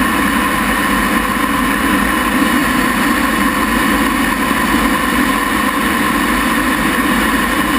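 Lockheed T-33 jet's Allison J33 turbojet running steadily: a loud, even rush with a constant whine, no rise or fall in pitch.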